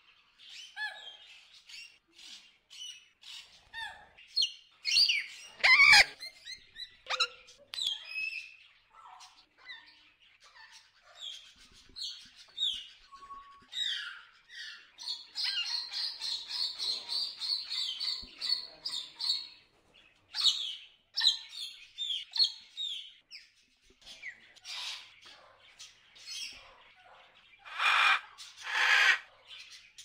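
Macaws calling: a steady stream of short chirps and squawks, a sustained chattering run through the middle, and two loud harsh squawks near the end.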